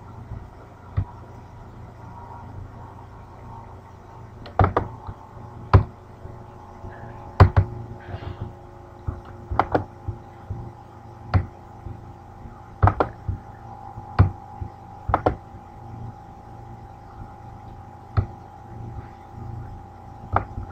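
Computer mouse buttons clicking, about a dozen sharp clicks at irregular intervals, several in quick pairs, over a faint steady hum.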